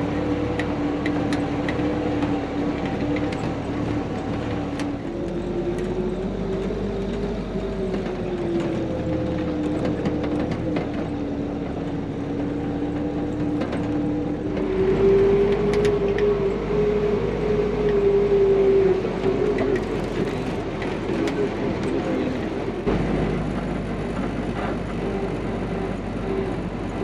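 Willys flat-fender Jeep's four-cylinder engine running while driving, its pitch rising and falling slowly with engine speed. The sound changes abruptly a few times, about 5, 15 and 23 seconds in.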